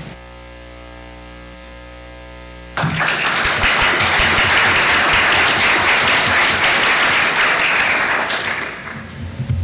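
Steady electrical hum from the sound system, then an audience starts clapping about three seconds in: loud applause from many hands for about six seconds, dying away near the end.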